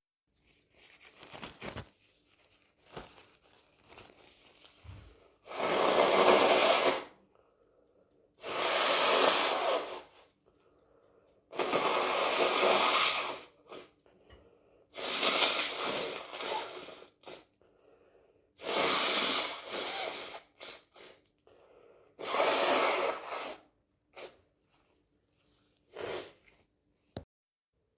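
A person with a cold blowing their nose hard, about seven times in a row. Each blow is a noisy blast of a second or so, about three seconds apart, with a shorter one near the end and small quiet sounds in between.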